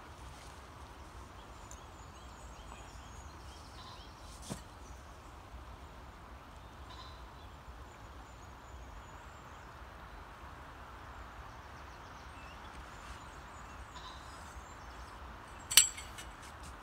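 Steady rush of a flowing river with small birds chirping now and then. A light knock about four and a half seconds in, and a loud sharp click near the end, the loudest sound, from kit being handled.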